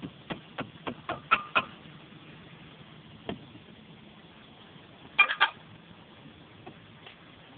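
Hammer tapping on clay roof tiles: six sharp knocks in the first couple of seconds, coming faster, the last two with a ringing clink, then a quick run of three knocks about five seconds in.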